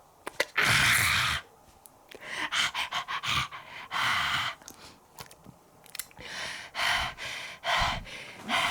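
Exaggerated, comic snoring and huffing breaths voiced for a puppet. A long loud snore comes about half a second in, then a quick run of short puffs and several shorter snores.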